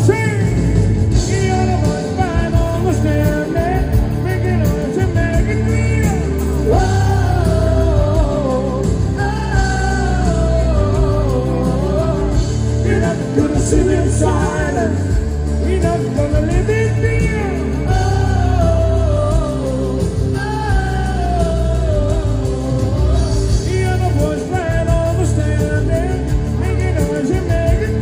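Live band playing amplified pop-rock: a lead voice singing over electric guitars, bass and keyboards, with a strong bass line underneath.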